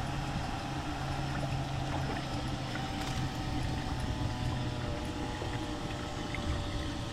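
A small motor on the fishing boat humming steadily, several even tones held over a wash of noise.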